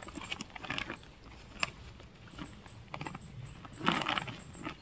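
Bear bag's roll-top being rolled down by hand: rustling, crinkling fabric with small scattered clicks, a louder burst of rustling about four seconds in.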